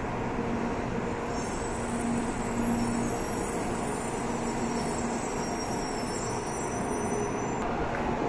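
JR West 700 series 'Rail Star' Shinkansen rolling slowly alongside the platform and coming to a stop: a steady rolling rumble with a faint hum.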